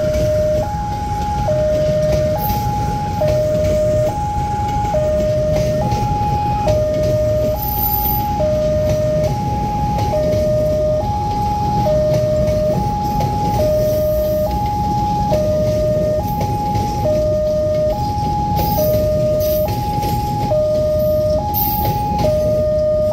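Railway level-crossing warning alarm sounding an electronic two-tone signal, a lower and a higher tone alternating about every three-quarters of a second, over a steady low rumble.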